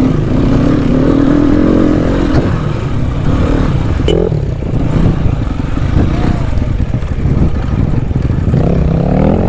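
Motorcycle engine running under way on a dirt track, its note wavering with the throttle and rising near the end.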